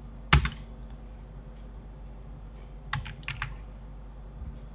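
Computer keyboard keystrokes: one loud double clack about a third of a second in, then a quick run of five or six keystrokes around three seconds in, over a low steady hum. These are the presses of Blender shortcut keys such as E to extrude.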